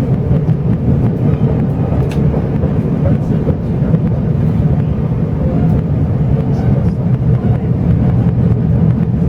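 Steady rumble of a locomotive-hauled Chu-Kuang Express passenger train running along the line, heard from inside the carriage.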